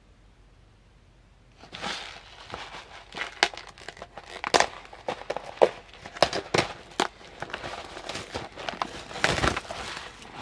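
Clear plastic wrapper on an instant-noodle tray crinkling and crackling as it is handled and pulled off the tray. It starts about one and a half seconds in, with many sharp crackles.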